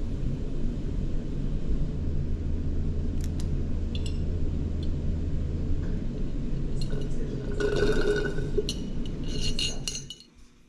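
A drinking glass clinks and knocks several times, with a cluster of ringing clinks in the last few seconds, over a steady low rumble. The sound drops away just before the end.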